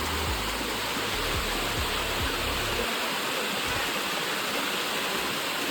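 Water of the Bua Thong Sticky Waterfall rushing steadily down its limestone rock. A low rumble sits under it in the first half and stops about halfway through.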